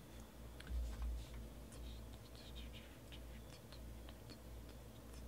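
Faint clicks and scratchy rustles of a stack of Panini Origins football cards being handled and flipped through, with a soft low thump about a second in, over a low steady hum.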